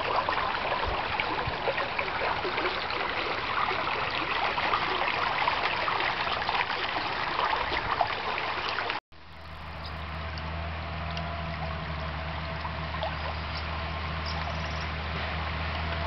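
Shallow river water rippling and flowing around fallen logs placed in the channel. About nine seconds in the sound cuts out for a moment; after that the water is quieter, with a steady low hum underneath.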